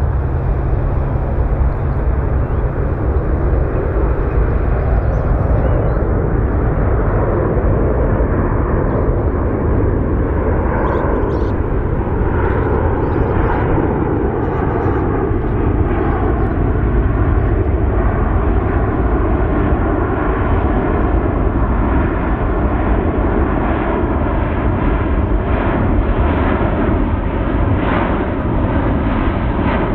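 Jet engine noise from a Boeing C-17 Globemaster III's four Pratt & Whitney F117 turbofans as the aircraft comes in on approach with gear down. It is a loud, steady noise, with a tone in it that slowly falls in pitch over the middle stretch.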